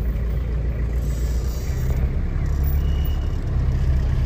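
Steady low rumble of engine and road noise inside a moving vehicle's cabin. There is a short swell of hiss about a second in and a brief high tone about three seconds in.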